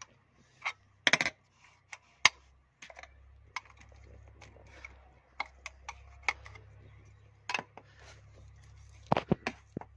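Scattered sharp clicks and light knocks of plastic parts and a screwdriver as a Toyota distributor's rotor and inner cover are pried loose and pulled off by hand. The loudest clicks come about a second in, at about two seconds, and in a short cluster near the end.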